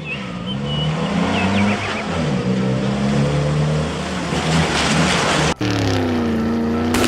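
Cartoon vehicle engine sound effects: engines revving up and down, with short high squeals in the first two seconds. About five and a half seconds in, the sound cuts to another engine whose pitch falls and then holds steady.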